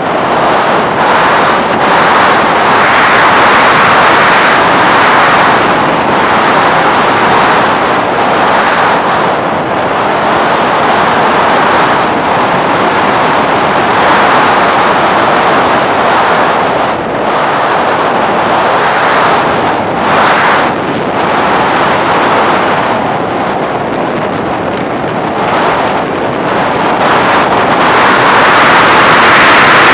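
Loud rushing wind on the microphone of a camera carried by a flying FPV Raptor radio-controlled plane, wavering up and down and growing louder near the end.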